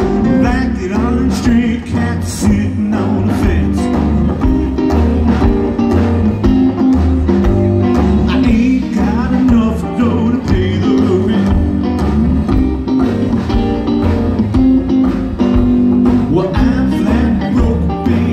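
Live rockabilly band playing, with slapped upright bass, electric guitar and a man singing over it.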